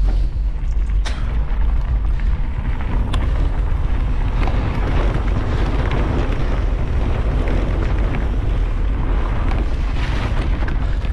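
Wind buffeting a camera microphone while riding a bike down a dirt and gravel road, with the tyres rolling and crunching over loose gravel and a few sharp clicks of stones.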